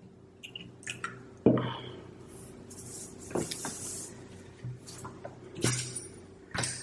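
Knocks and clinks of drinking vessels being handled and set down on a tabletop, the loudest about one and a half seconds in, with a short hiss around the middle.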